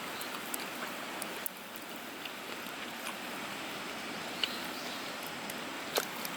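Wood fire burning in a fire pit: a steady hiss with scattered sharp pops and crackles, the loudest pop near the end.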